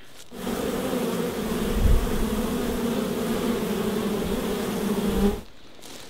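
Many honey bees buzzing in a steady, dense hum that starts just after the beginning and cuts off abruptly about five seconds in, with a brief low thump about two seconds in.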